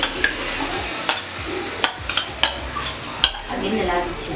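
Marinated prawns sizzling in a kadai while a spatula scrapes the rest out of a bowl and stirs, with several sharp clicks of the spatula against the bowl and pan.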